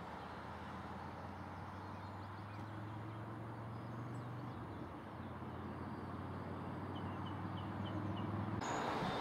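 Open-country ambience: a steady low hum and a wide airy hiss, with a few short high bird chirps in quick succession near the end. Just before the end the sound switches abruptly to a louder rushing noise.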